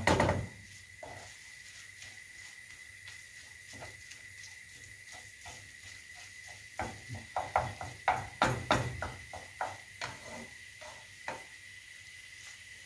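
Wooden spoon stirring ground meat sautéing in a frying pan: faint steady sizzle, then a run of quick scrapes and knocks of the spoon against the pan from about seven to eleven seconds in.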